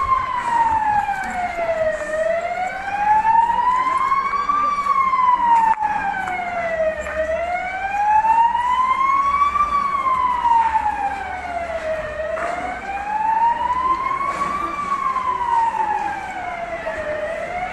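Emergency vehicle siren in a slow wail, gliding up and down about once every five seconds.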